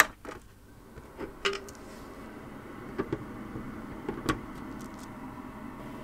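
Electric food dehydrator switched on with a click, its fan motor then running with a steady hum that builds over the first two seconds. A few light plastic clicks come over the hum.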